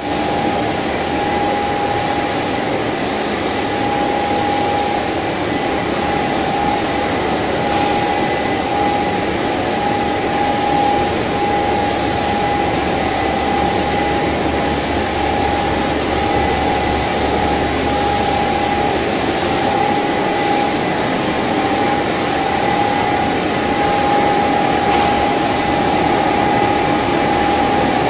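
Machinery of a stainless-steel french fry production line running: a steady electric-motor hum with a constant whine over it, unchanging throughout.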